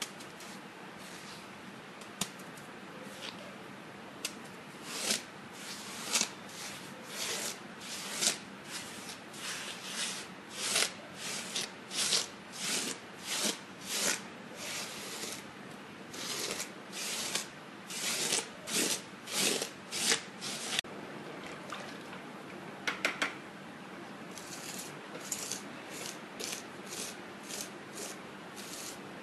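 Gritty scraping strokes of a trowel spreading marble-chip plaster over a surface, repeated about one or two times a second. The strokes break off about two-thirds of the way through, with a few quick clicks, then resume more softly near the end.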